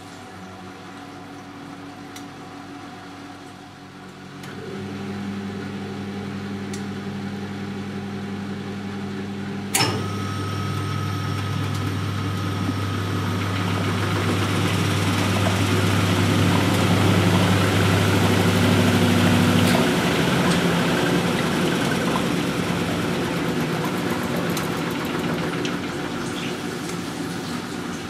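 Siemens Siwamat 960 washing machine in an interval spin. A steady hum starts a few seconds in, then a relay click sets the drum spinning up with a rising rush that grows louder. About two-thirds of the way through, the low hum cuts off and the drum's rush slowly dies away as it coasts down.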